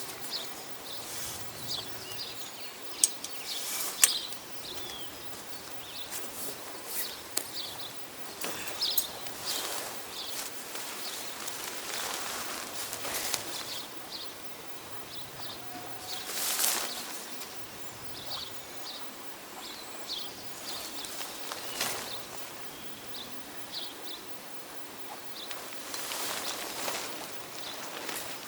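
Outdoor ambience with small birds chirping, and scattered sharp clicks and rustling handling noises; the two loudest clicks come about three and four seconds in.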